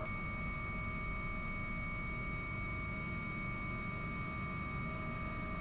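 AW139 helicopter cockpit noise during takeoff: a steady low rumble from the engines and rotor, with several steady high-pitched whining tones over it.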